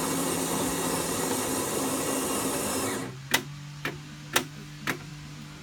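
Saeco Aulika bean-to-cup machine's built-in grinder grinding coffee beans for a short black, cutting off about three seconds in. Four sharp clicks from the machine follow about half a second apart over a low hum.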